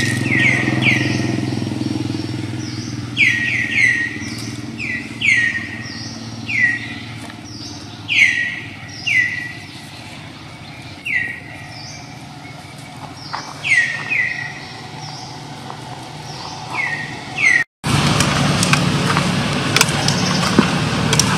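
A bird calling repeatedly with short, sharp chirps that sweep downward, one every second or two, over a low engine hum that fades away in the first few seconds. Near the end the sound cuts out briefly and a steady rushing noise takes over.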